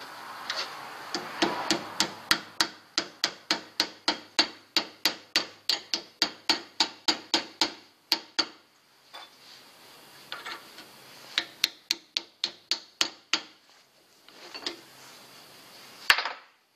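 Ball-peen hammer striking a piece of metal tube on an anvil: a quick even run of blows at about three a second, then after a pause a shorter run and a few single blows.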